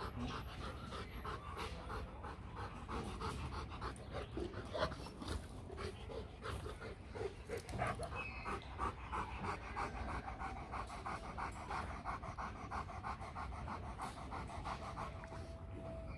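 Rottweilers panting with quick, even breaths.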